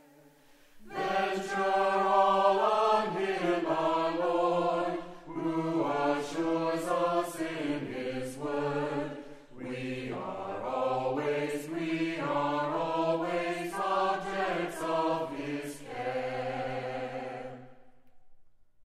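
Voices singing slowly in harmony, a choir, in long held phrases with short breaths between them. It starts about a second in and fades out near the end.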